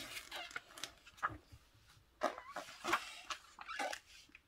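A picture book's paper page being turned and handled: a few soft rustles and light taps.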